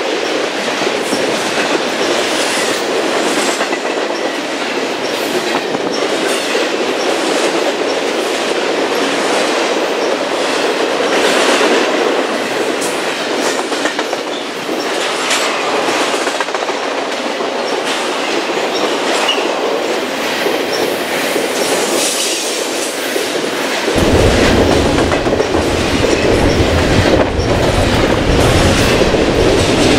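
Double-stack intermodal freight train rolling past, with the steady rumble of steel wheels on rail and irregular clacks as the well cars' wheels cross rail joints. About 24 seconds in, the sound turns abruptly closer and louder, with a heavy low rumble.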